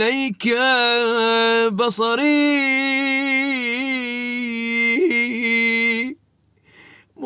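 A man chanting an Arabic supplication solo and unaccompanied in a melodic maqam style, drawing out long ornamented held notes. The voice stops about six seconds in, and there is a short pause before it starts again.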